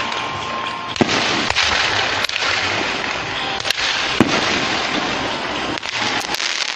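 Fireworks going off in a barrage: a dense, continuous crackle broken by about half a dozen sharp bangs.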